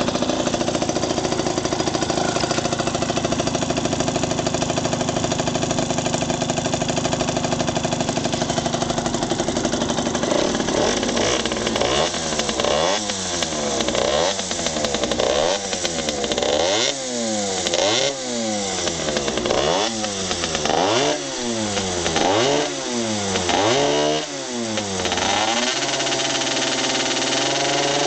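Yamaha RZ50R's 50 cc two-stroke single-cylinder engine idling steadily, then revved again and again from about ten seconds in, its pitch climbing and falling with each blip of the throttle, dropping back to idle near the end before one more rev.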